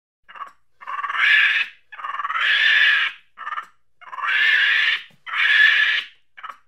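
A monkey giving a run of hoarse, noisy calls: four long ones about a second each, with shorter ones between them.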